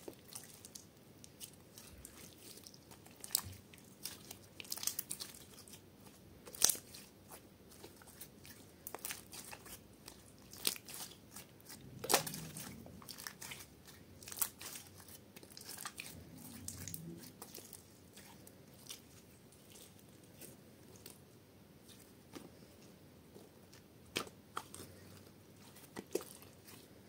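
Hands squeezing and kneading sticky clear slime mixed with small beads and sprinkles, giving irregular sharp pops, clicks and crackles.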